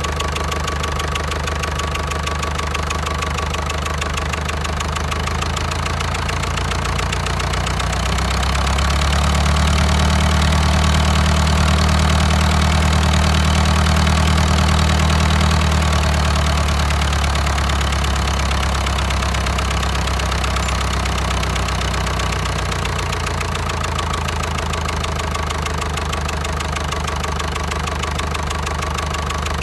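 Diesel engine running with a rapid, even knocking beat. It grows louder for several seconds about a third of the way in, then settles back, as while its injection pump is being set.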